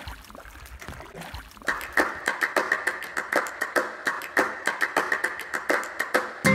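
Faint water and wind noise, then from about two seconds in a fast, even clicking beat of about four clicks a second: the percussive opening of a music track that leads into acoustic guitar.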